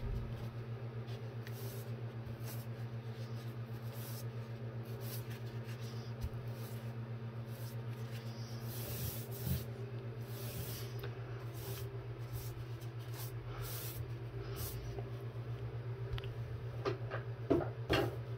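Paintbrush strokes brushing primer onto the bare wood inside a cabinet box: soft, intermittent swishes over a steady low hum, with a few light knocks against the cabinet near the end.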